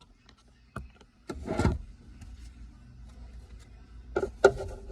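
Plastic clicks and knocks from a pickup's center console lid trim being pried loose and handled: a few sharp clicks, a short scraping pop about a second and a half in, and the loudest knock near the end.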